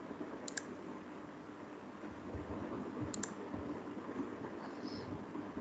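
Computer mouse clicks: a quick press-and-release pair about half a second in and another about three seconds in, over a faint steady hiss.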